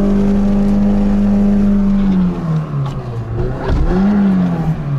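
Niva 4x4 engine heard from inside the cabin, held at high revs while the car struggles through deep muddy water. About two seconds in the revs drop, then climb again and fall back near the end.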